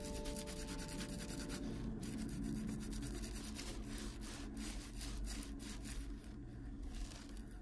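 Fuzzy cloth scrubbing foamy cleaner over a leather ballet flat, a run of uneven rubbing strokes.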